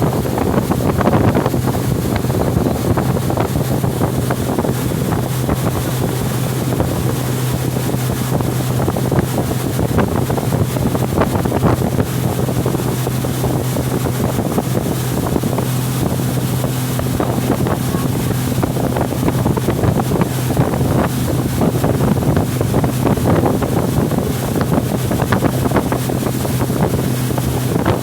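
A motor running steadily with a constant low hum, with wind buffeting the microphone.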